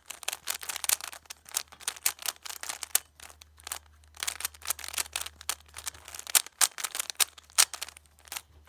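Plastic speed cube being turned rapidly by hand: fast, irregular clicking and clacking as the layers snap round, easing off briefly about three seconds in.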